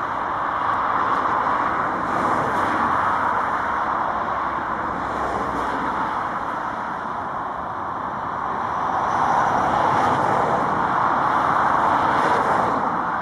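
Boeing 737-800's two CFM56-7B turbofan engines at takeoff thrust as the jet accelerates down the runway and lifts off: a broad, steady rushing noise that swells and ebbs, loudest about two-thirds of the way in.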